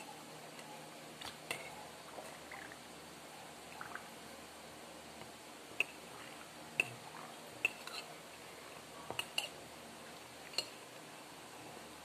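Metal spoon clinking and scraping inside a plastic cup while scooping out bread soaked in a drink: scattered light clinks at irregular intervals.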